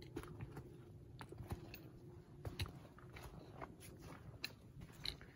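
Hiker's footsteps on a forest trail: an irregular run of soft crunches and clicks.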